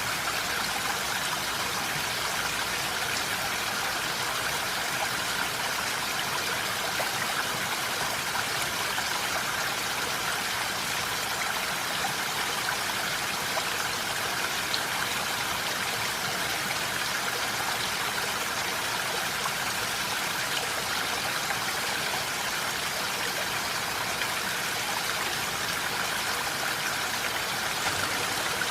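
Steady rain falling, an even unbroken hiss with no thunder or single loud drops.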